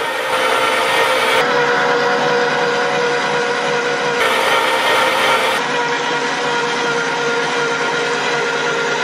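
Electric meat grinder's motor running steadily with a whine of several fixed tones, its sound shifting abruptly a few times.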